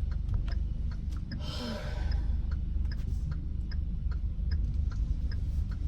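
Car cabin while pulling out slowly: a low engine and road rumble under a steady light ticking, typical of the turn signal, with a short breath-like sound about a second and a half in.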